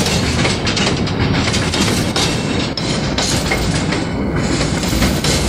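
Freight train's open-top gondola wagons rolling past close by, steel wheels clattering on the rails with a steady rumble and frequent irregular knocks.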